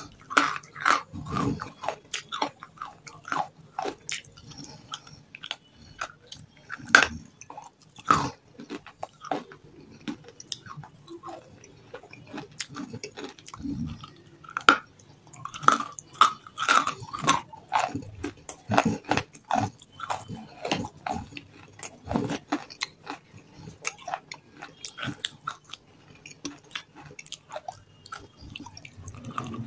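Close-miked biting and chewing of crunchy grey chunks coated in a wet grey paste. Irregular crisp crunches come with wet, sticky mouth sounds.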